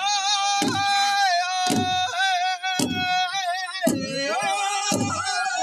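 Native American ceremony song: a group of men singing together in high, held voices over a large powwow drum that they strike in unison with sticks, a slow steady beat of about one stroke a second. The singing comes in at the start, with the pitch sliding about four seconds in.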